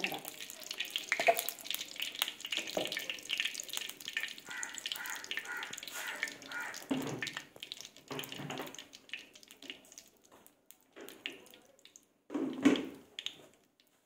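Coconut oil poured from a bottle into a hot iron kadai, making a steady pouring, sizzling hiss for about the first half. Then it is quieter, with a few short thuds; the loudest comes near the end.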